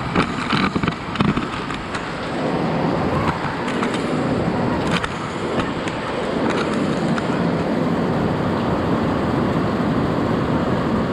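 Heavy rain pouring down steadily, a loud even hiss, with a few sharp taps in the first five seconds.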